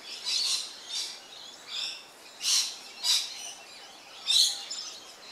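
Birds chirping: a string of about six short, high calls spread over five seconds, with the loudest ones about two and a half, three and four and a half seconds in.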